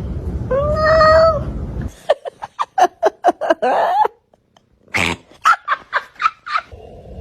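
Cat vocalising: one drawn-out meow over a low rumble about a second in, then rapid runs of short calls, about four or five a second, broken by a brief pause.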